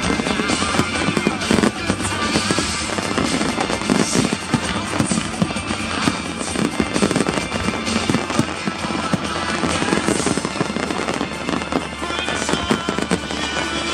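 Fireworks display: many shells bursting and crackling in quick, overlapping succession, with music playing underneath.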